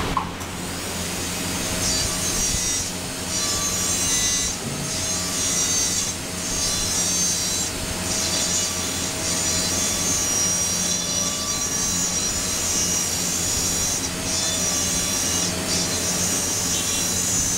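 High-speed dental handpiece whining as its straight fissure bur cuts a Class I cavity into a typodont molar. The high whine dips briefly several times as the bur is moved through the tooth.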